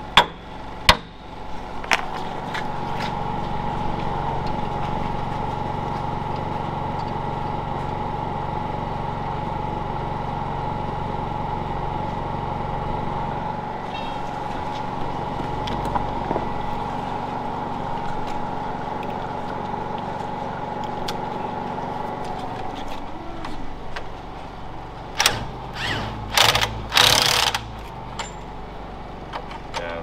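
Cordless angle grinder running steadily for about twenty seconds, cutting through an old bolt on a manure-auger bearing plate. Near the end, a cordless impact wrench rattles in several short bursts, running a new bolt and nut on.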